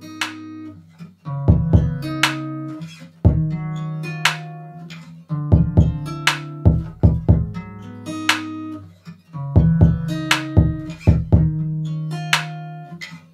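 Background music: a plucked guitar figure over deep bass notes, repeating in a pattern of sharp notes about every four seconds.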